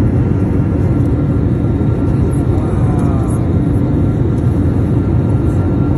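Steady jet airliner cabin noise in flight: the engines and rushing airflow heard from inside the passenger cabin, a constant low rumble.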